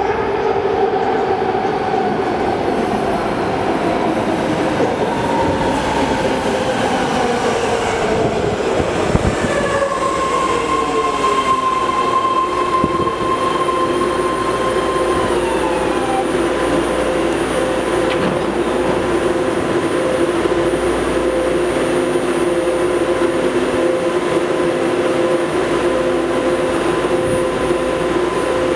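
BART train coming into the station and braking to a stop. Its motor whine falls steadily in pitch over the first ten seconds or so. Then the standing train gives off a steady hum and whine from its onboard equipment, with one higher whine that slides down and fades about halfway through.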